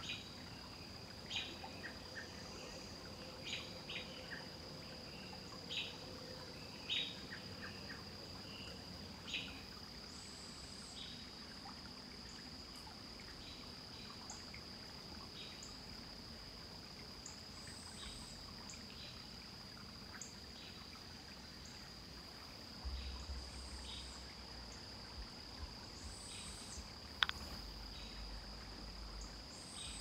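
Woodland ambience: a steady high-pitched insect drone with short bird chirps every second or two, thickest in the first ten seconds. A sharp click sounds near the end.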